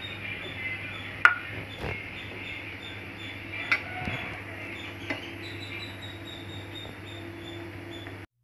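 Thin jam mixture bubbling at a steady boil in a non-stick pan, with a few sharp utensil taps from the wooden spatula. A steady low hum runs underneath.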